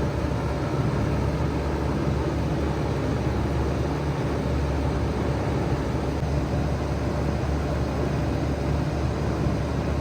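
2007 Bard 5-ton wall-mounted packaged heat pump running steadily in cooling mode: a constant low hum under a steady rush of air.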